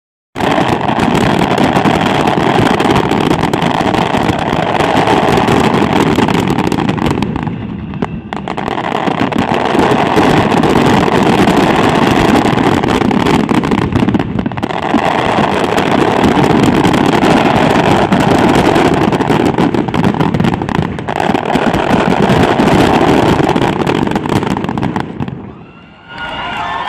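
Fireworks finale barrage: aerial shells, comets and mines firing and bursting in rapid, overlapping succession, a loud continuous rumble of reports, with brief lulls about 8 and 14 seconds in. It dies away near the end.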